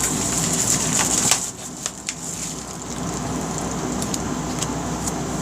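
Crackling, rustling handling noise of a carburetor jet kit's packaging being opened and sorted, with many small clicks.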